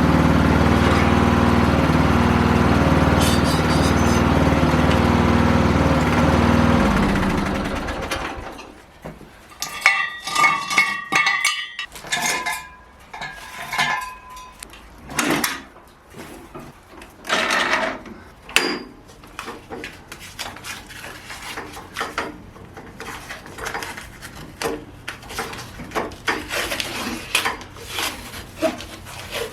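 Small garden tractor engine running steadily, then dying away about seven seconds in. Scattered metal clanks and knocks follow.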